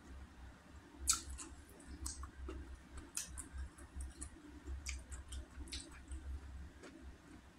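Close-up mouth sounds of someone eating salmon head: irregular wet clicks and smacks of chewing and sucking, the sharpest about a second in.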